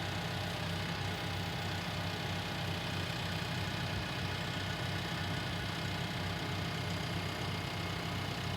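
Tractor engine running steadily at an even speed, with no revving.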